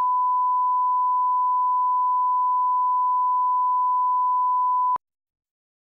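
Steady 1 kHz line-up test tone played with colour bars, one unchanging pure beep that cuts off suddenly about five seconds in.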